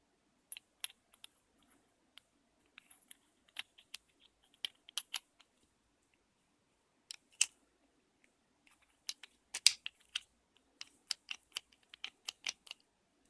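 Small metal parts of a car door lock cylinder clicking and tapping as its wafer tumblers are handled and fitted into their slots. The clicks are sharp and irregular, with a short pause about halfway through; the loudest comes about three-quarters of the way in.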